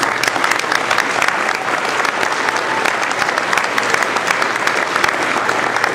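Crowd of people applauding and clapping steadily, breaking out right after a rookie-of-the-year winner is named.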